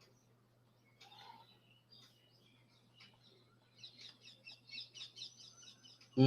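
Faint birds chirping in rapid, high-pitched notes, growing busier and louder a few seconds in, over a steady low electrical hum.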